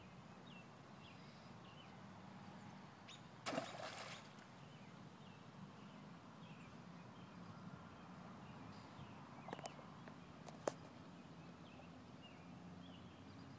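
Faint birds chirping over quiet background, with a short splash about three and a half seconds in as the wire golf ball retriever lands in the pond. Two sharp clicks come near the end.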